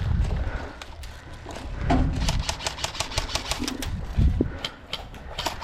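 Airsoft guns firing rapid bursts: a fast string of sharp snapping shots, several a second, starting about two seconds in. There are low thumps of wind or handling on the action camera near the start and twice more.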